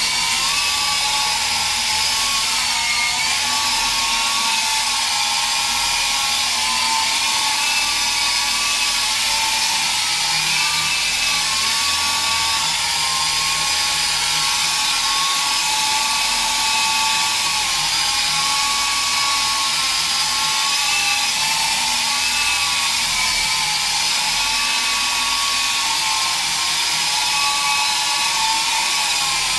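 Electric RC helicopter (T-34, LiPo-powered) in flight: a steady high-pitched motor and rotor whine whose pitch wavers gently up and down as it hovers and moves about.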